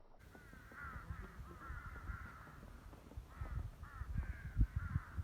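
Several crows cawing over one another in a continuous run of calls. Low thumps and rumble sit underneath, the sharpest about four and a half seconds in.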